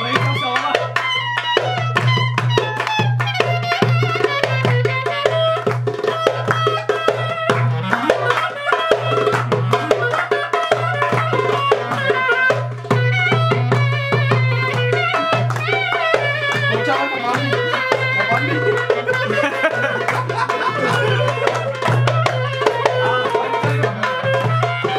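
Lively traditional dance music: a hand drum playing a fast, busy rhythm under a wandering melody line, with a steady low bass.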